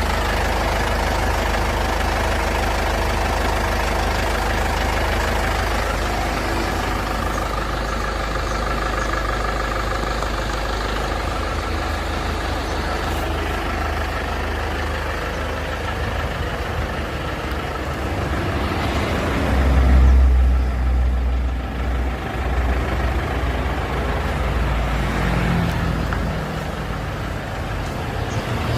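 Isuzu Panther LS Turbo's four-cylinder turbo diesel engine idling steadily, with a brief louder low rumble about two-thirds of the way through.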